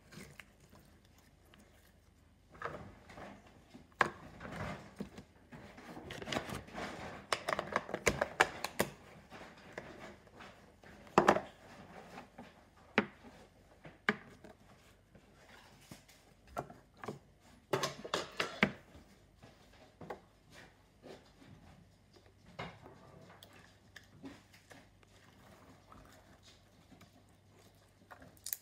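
Slime being squeezed and handled, along with its container: irregular squelching and crackling clicks with a few sharper knocks. The noises are busiest through the first two-thirds and then thin out.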